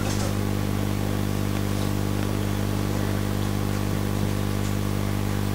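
Steady low hum with even overtones, unchanging in pitch and level.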